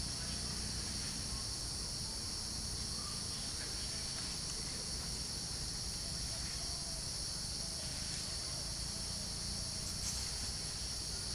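Steady, unbroken high-pitched chorus of insects, crickets or cicadas, over a low steady rumble.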